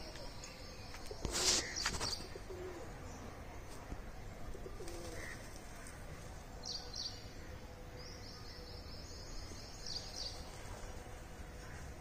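Small birds chirping outdoors: short high calls several times, mostly in the second half, over a low background rumble. A brief loud rustling burst comes about a second and a half in.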